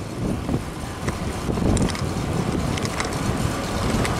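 Wind buffeting the microphone of a camera riding along on a moving bicycle, a gusting low rumble mixed with tyre and road noise, with a few brief sharp clicks.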